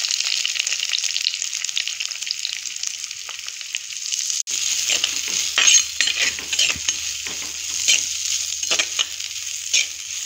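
Chopped onions sizzling in hot oil in a clay pot as they start to sauté. From about halfway through, a metal spatula stirs them, with repeated scrapes and knocks against the pot over the steady sizzle.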